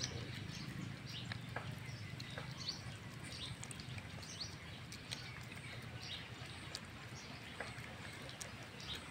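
Puppy eating rice off a plastic plate, with scattered wet smacks and clicks as it chews and licks, while small birds chirp repeatedly in the background over a steady low hum.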